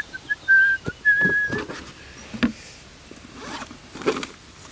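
A few whistled notes, each held at one pitch, ending about one and a half seconds in. Then come quieter scrapes and rustles as a plastic cool box is opened and rummaged through.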